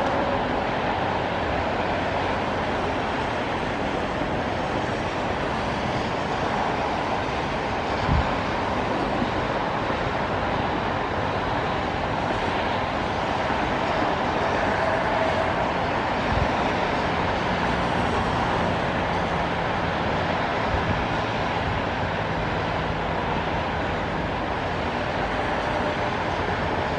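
Steady hiss of city expressway traffic on rain-wet pavement. Two low thuds come about eight and sixteen seconds in, and a low steady hum runs for several seconds after the second.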